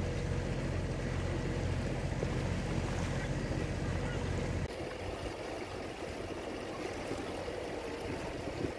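Boat engine running steadily, with water rushing along the hull. A little over halfway through, the engine hum cuts off suddenly, leaving only water lapping and sloshing.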